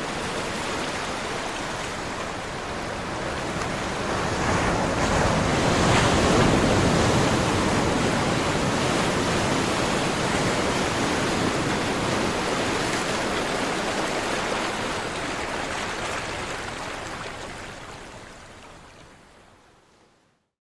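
Caribbean sea surf: a continuous wash of waves that swells to its loudest about six seconds in, holds steady, then fades away near the end.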